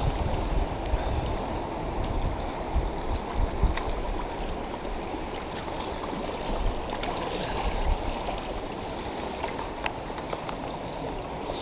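Steady rush of river current, with wind rumbling on the microphone and a couple of faint clicks.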